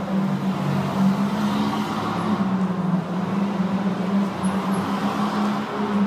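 Go-karts running on an indoor kart track: a steady engine drone, as a kart comes through the corner nearby and away.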